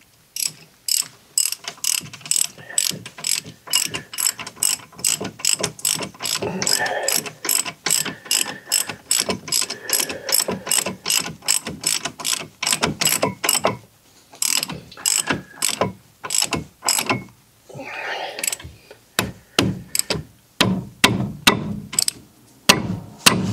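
Hand ratchet tightening a brake caliper bracket bolt: a steady run of sharp pawl clicks, about two to three a second, breaking off briefly a little past halfway and then resuming, with a few duller knocks in the last seconds.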